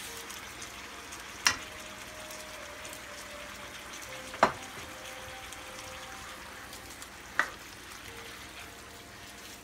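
Chicken pieces cooking in soy sauce and vinegar in a nonstick frying pan, sizzling steadily. Three sharp clicks come about three seconds apart and stand out above the sizzle.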